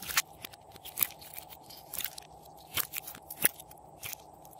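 Pink glitter slime squished by hand and pressed into a clear plastic mold tray, giving about six sharp sticky pops and crackles, roughly one a second, the loudest about three and a half seconds in.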